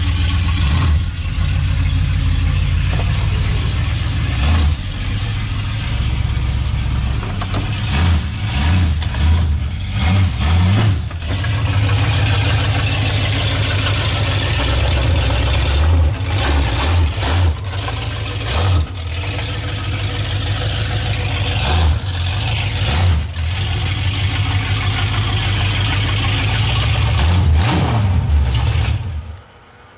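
Lifted pickup truck's engine running at a steady idle, with repeated short revs of the throttle; the sound drops away suddenly near the end.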